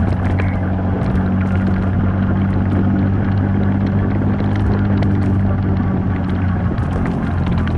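Off-road vehicle engine running at a steady pace, with scattered light clicks and rattles over it.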